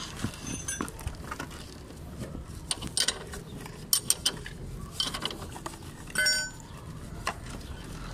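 Greasy motorcycle part being scrubbed with a brush in a tray of oily liquid, with scattered scrapes and metallic clinks as metal knocks against metal and the container. One clink about six seconds in rings.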